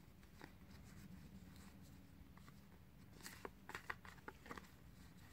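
Faint ticks of SEGA Dinosaur King arcade cards being thumbed through one by one in the hands, a handful of them mostly in the second half, over near-silent room tone.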